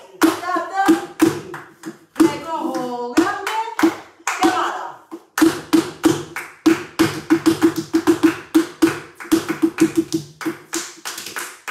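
Flamenco footwork: hard-soled flamenco shoes striking a wooden floor in a quick, rhythmic patá por bulerías, with palmas (hand clapping) keeping time. The strikes come thickest in the second half, and a voice calls out over the first few seconds.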